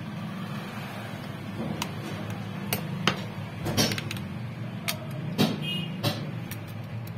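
Sharp, irregular clicks and snaps of a Samsung Galaxy A7's plastic back panel being pried off its clips with a thin opening tool, about eight in all and loudest in the middle. A steady low hum runs underneath.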